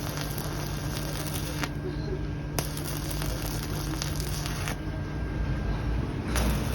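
Arc of a BEST-415 stick welding machine crackling and sizzling as the electrode burns, over a steady low hum. The sharp crackle drops out twice for a second or so.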